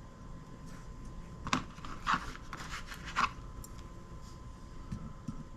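Small parts being handled at a workbench: a few short scrapes and clicks between about one and a half and three seconds in, over a faint steady high tone.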